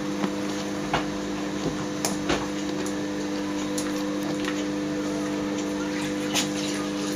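A steady low electrical hum runs throughout. Over it come scattered light clicks and taps, the claws of a Lhasa Apso and its puppies on a tiled floor as they play.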